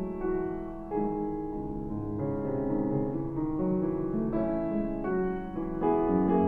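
Solo piano music in a classical style, with notes and chords held and changing about once or twice a second.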